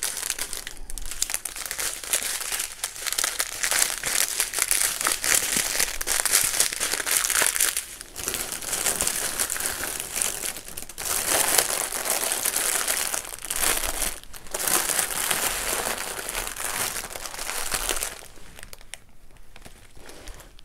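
Clear plastic bags crinkling and rustling as small sealed packets of diamond painting drills are handled and stuffed into a larger plastic bag, in bursts with short pauses between them. It grows quieter over the last couple of seconds.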